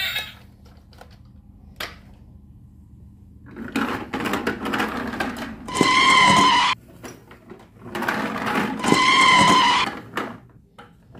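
Plastic toy trains rattling as their motors and wheels run on a tile floor, twice broken by a loud electronic toot lasting just under a second.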